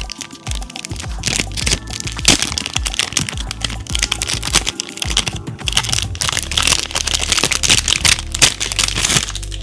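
Packaging being handled and crinkled during an unboxing: dense, irregular crackles and rustles that stop near the end, over background music.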